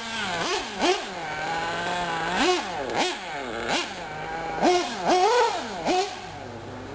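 Small nitro engines of 1/8-scale RC buggies, a Hot Bodies D8 and an Associated RC8, revving up and dropping off again and again as the buggies are throttled and braked around the track. At times two engines are heard at once.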